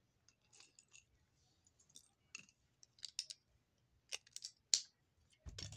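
Plastic Lego pieces clicking and clattering as they are handled, in irregular sharp clicks, with a dull knock near the end.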